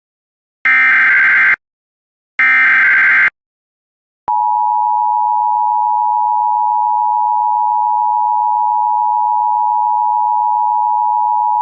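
Emergency Alert System signalling for a tornado warning: two harsh bursts of SAME digital header data, each about a second long, encode the alert. After a second's pause, the steady two-tone EAS attention signal (853 and 960 Hz) starts about four seconds in and holds.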